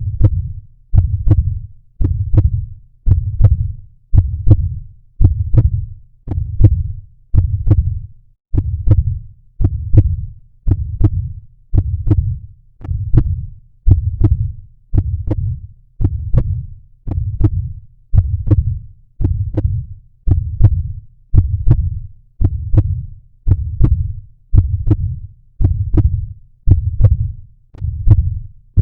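Heartbeat sound effect beating steadily, about one low thump a second.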